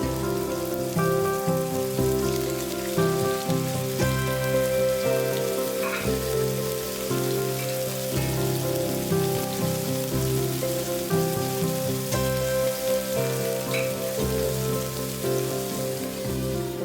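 Background music over a steady, rain-like hiss, most likely chicken frying in a pan.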